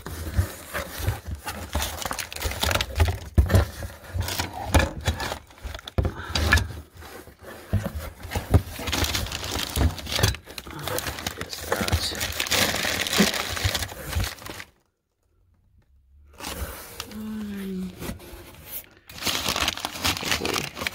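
Newspaper wrapping crinkling and rustling as wrapped items are handled and pulled out of a box, with scattered knocks of objects being shifted. The sound drops out for about a second and a half past the middle, and a short vocal sound comes after it.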